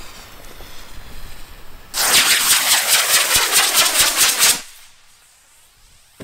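E12 model rocket motor firing on a large cardboard helicopter-style firework: a loud rushing hiss with a rapid, even pulsing, starting about two seconds in and cutting off suddenly after about two and a half seconds as the motor burns out.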